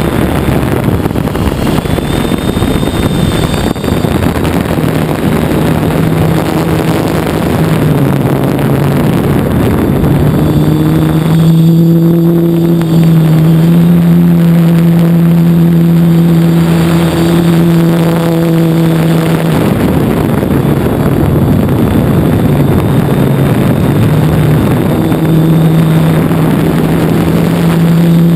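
Hexacopter's electric motors and propellers humming steadily, heard from the onboard camera. The pitch steps up and down with the throttle, rising about a third of the way in, falling back later and rising again near the end.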